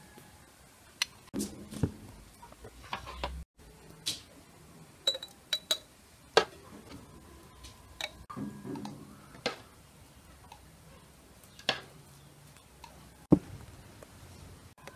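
A metal spoon clinking against glass jars and a metal bowl as feijoa jam in syrup is spooned into jars: a dozen or so scattered sharp clinks and taps, with one heavier knock near the end.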